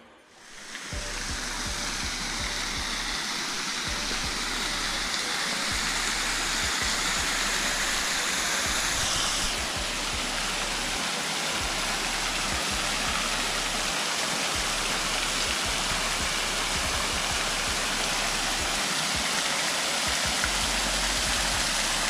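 A small waterfall pouring over a rock ledge into a rocky creek: a steady rush and splash of falling water that fades in during the first second.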